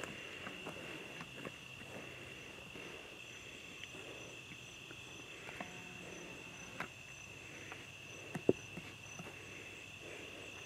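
Crickets trilling steadily in a high-pitched chorus, with scattered faint clicks and one sharper click about eight and a half seconds in.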